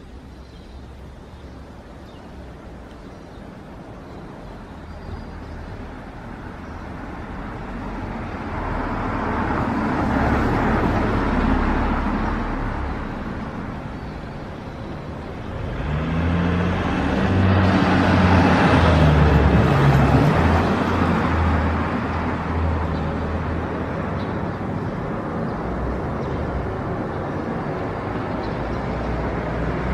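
Street traffic: road vehicles passing, one swelling and fading about ten seconds in, and a louder one with a low engine note from about sixteen to twenty-one seconds in, over a steady low traffic rumble.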